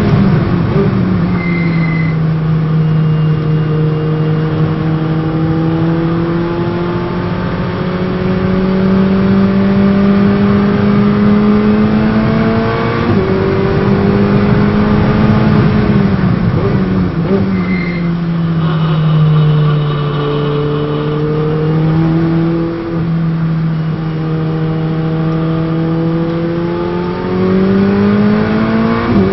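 Ferrari 488 Challenge's twin-turbo V8 heard from inside the cockpit at sustained high speed. Its pitch climbs slowly through long gears, with sudden steps in pitch at gear changes several times.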